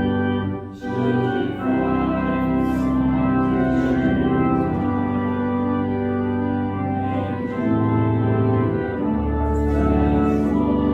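Church organ playing a hymn in sustained chords that change every second or two, with a brief break just under a second in.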